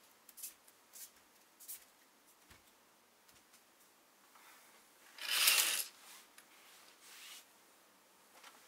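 Soft rustling of bedding and clothing as a sleeper shifts under the blankets: a few small scratchy rustles in the first two seconds, then one louder rustle about five seconds in and a fainter one soon after.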